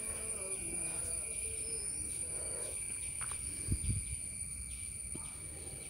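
Steady, high-pitched insect chorus, with a couple of soft low thumps about four seconds in.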